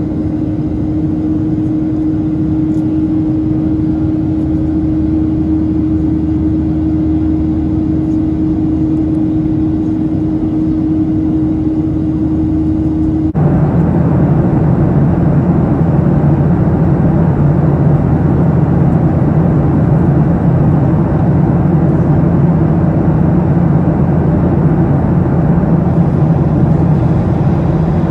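Cabin noise of a Boeing 737-800 in flight beside the wing: a steady rush of air and the drone of its CFM56-7B turbofan engines, with a steady hum over it. About thirteen seconds in the sound cuts abruptly to a slightly louder, lower drone.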